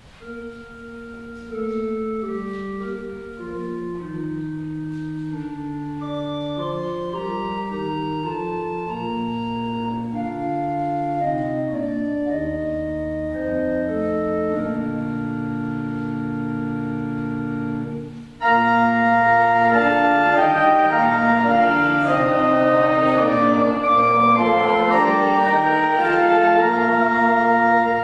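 Church organ playing a hymn in slow, sustained chords. About 18 seconds in it suddenly becomes much louder and fuller.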